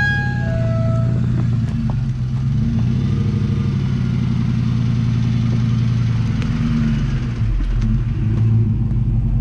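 Ford F-150 pickup truck engine running at low revs as the truck creeps past. The low exhaust note grows deeper and louder near the end as the tailpipe passes close by.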